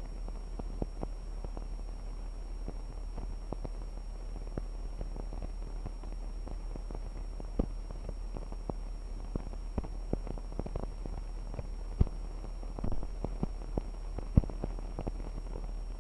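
Blank stretch of a 16mm film's optical soundtrack: steady low hum and hiss with scattered crackles and pops from dirt and scratches on the film, and a faint steady high whine. A few louder pops come in the second half.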